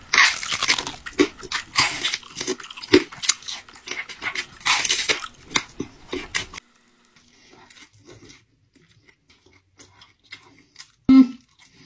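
Raw vegetables crunching as they are bitten and chewed, close to the microphone: a dense run of sharp crunches, then quieter chewing. Near the end comes a single short, loud, pitched sound.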